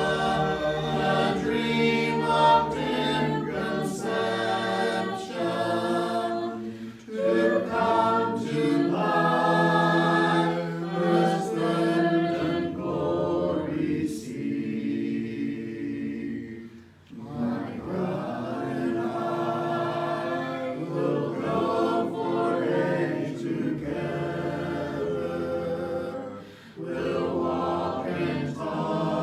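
A small congregation singing a hymn a cappella, voices only with no instruments, in sung phrases broken by brief breath pauses at about 7, 17 and 26 seconds in.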